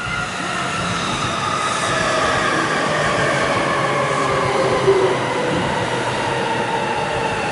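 Saitama Line electric commuter train pulling into the station and slowing as it passes close by. Its whine of several tones falls slowly in pitch over the rumble of wheels on rail.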